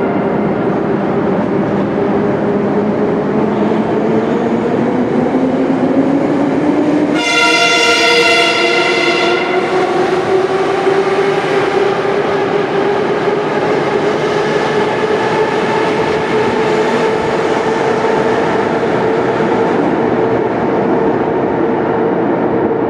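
Moscow metro 81-717/714 'Nomernoy' train accelerating, its traction-motor whine rising steadily in pitch over the running and wheel noise. About seven seconds in, the train's horn sounds for about two seconds.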